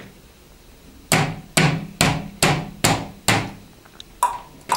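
Plastic toy horse tapped on a wooden tabletop in a steady clip-clop of hoofbeats: six even knocks, a little over two a second, then lighter taps near the end.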